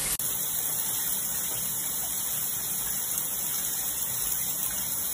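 Shower running steadily, its water spraying into a bathtub.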